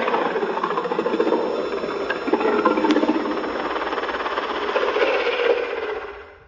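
Godzilla's roar sound effect from the 2014 Legendary film: one long, raspy roar that fades out near the end.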